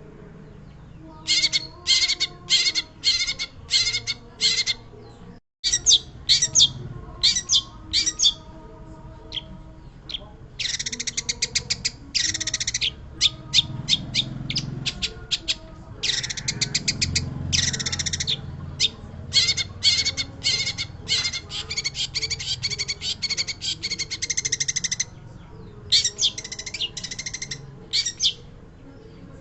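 Long-tailed shrike (pentet) singing energetically: bursts of rapid, harsh chattering notes and fast trills, with a brief dropout about five seconds in.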